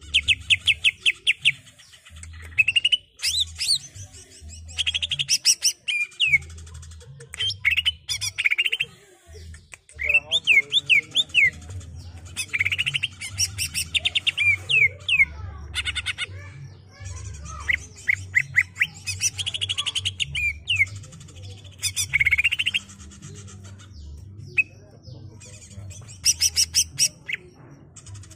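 Male greater green leafbird (cucak ijo) singing: rapid runs of sharp chattering and whistled notes with quick pitch sweeps, in bursts of a second or so, one after another with short pauses.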